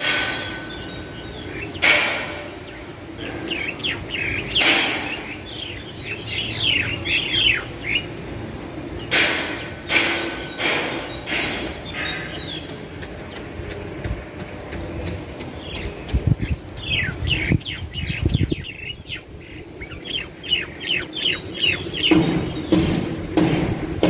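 Black bulbuls calling: runs of short, quick chirping calls, several birds together, with a few sharp knocks in the first half and a brief low rumble about two-thirds of the way through.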